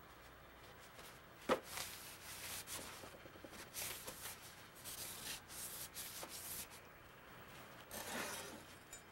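A cloth rubbed in short, quick strokes along the steel blade of a Martindale No. 204 machete lying on a wooden bench, with a single sharp knock about a second and a half in and one last stroke near the end.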